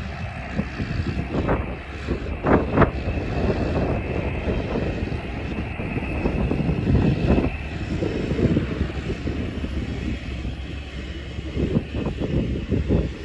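Cessna 208 Caravan's Pratt & Whitney Canada PT6A-114A turboprop engine running as the plane rolls along the runway, a steady high whine over a rough rumble. Gusty wind buffets the microphone.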